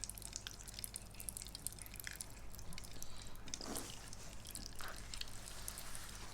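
Faint wet clicks and squishes of a spoon cutting into soft jelly sitting in syrup, with two brief faint vocal sounds a little past the middle.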